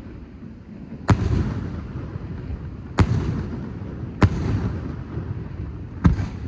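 Fireworks show: aerial firework shells bursting in a series of loud, sharp bangs spaced one to two seconds apart, each followed by a low rolling rumble that dies away.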